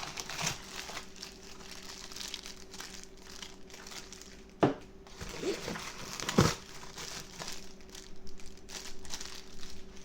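Packaging crinkling and rustling as kit components are unpacked by hand, with two sharp knocks around the middle.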